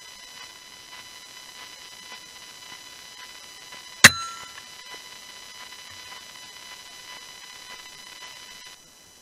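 A single shot from a BSA R10 Mk2 .177 PCP air rifle about four seconds in: one sharp crack with a brief ringing tail. Around it is a steady faint hiss with a thin electronic whine.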